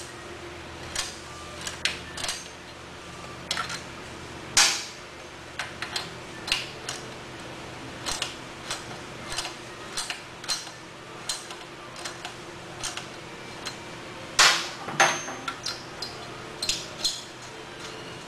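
A wrench working the footrest hanger bolts on a motorcycle frame: irregular sharp metal clicks and clinks. A few louder clacks come about four and a half seconds in and near the end.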